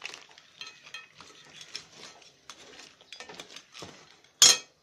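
Metal tongs scraping and clinking against a steel kadai as crab pieces are turned in thick gravy, in many small scattered clicks, with one loud sharp clank near the end.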